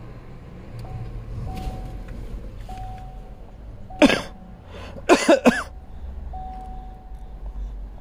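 A person coughing: one hard cough about four seconds in, then a quick run of three coughs a second later, over a low steady rumble with a faint tone that comes and goes.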